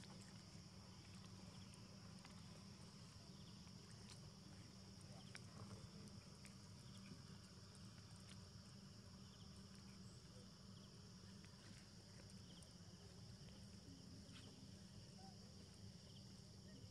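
Near silence: a faint, steady, high insect drone, with a few faint scattered ticks.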